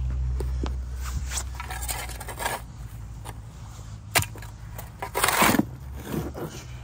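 Shovel digging into soil: a few scrapes and chops, with a sharp clink about four seconds in and the loudest scrape about a second later.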